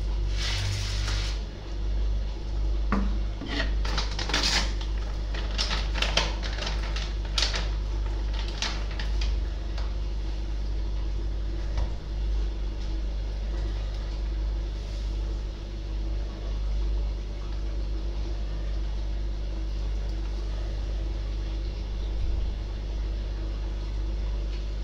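Metal teaspoon clinking and scraping and a foil bag crinkling as brine shrimp eggs are spooned into a small plastic jar, with many sharp clicks mostly in the first ten seconds and a steady low hum underneath.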